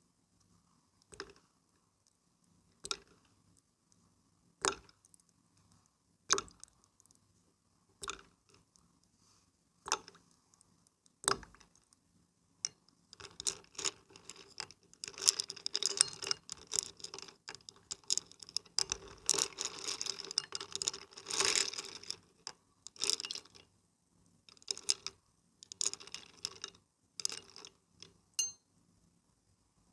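Close-miked water being played with by hand: single splashes and drips about every one and a half seconds, then a stretch of busy splashing and sloshing from about 13 to 22 seconds in, trailing back to scattered splashes.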